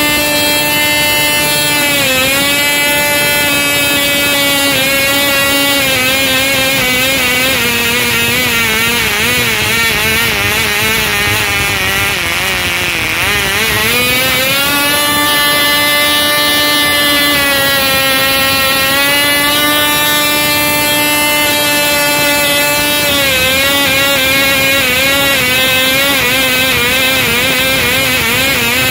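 Vintage 1960s Cox Tee Dee two-stroke glow engine running flat out with a high, steady note, slowed and sped up by a homemade servo-driven throttle plate over its air intake. The pitch sags gradually for several seconds, jumps back up about halfway, then dips again and wavers near the end.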